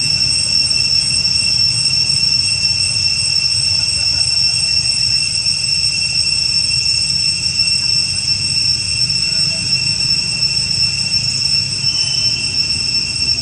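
Steady, high-pitched insect drone, typical of cicadas, holding one pitch with no break, over a low background rumble.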